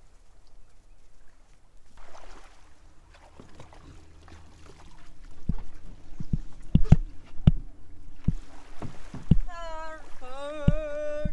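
A string of sharp knocks and thumps as a heavy boat battery is loaded into an inflatable dinghy at the water's edge, starting about halfway through. A person's voice calls out briefly near the end.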